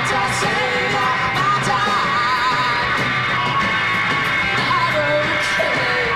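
Live rock band playing: a woman singing into a microphone over electric guitar and drums.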